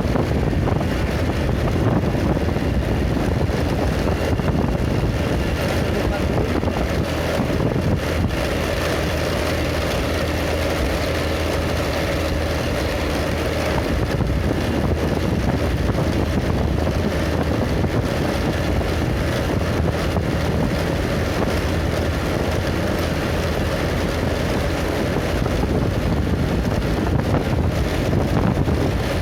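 A vehicle travelling steadily along a road, its engine running at a constant pace, with wind rushing over the microphone.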